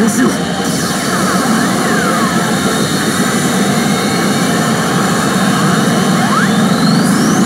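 Loud, dense din of a pachinko parlor: a steady wall of noise from machines and steel balls, with a few short gliding electronic tones, one falling and two rising near the end.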